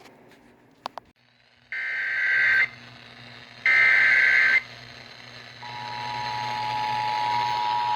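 Emergency Alert System activation received over the radio: two harsh, buzzy bursts of SAME header data, each about a second long, then from about halfway the steady two-tone EAS attention signal. Together they mark the start of a broadcast warning, here a severe thunderstorm warning.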